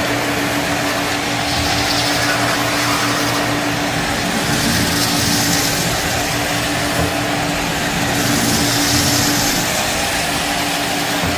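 Shark vacuum cleaner running steadily on carpet, a held motor tone under a rushing hiss that swells and eases every couple of seconds as the head is pushed back and forth.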